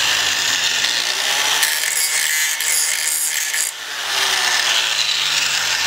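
Ryobi 4-1/2-inch angle grinder running and grinding the edges of a steel shock tab mount, a steady harsh grinding noise that dips briefly just before four seconds in.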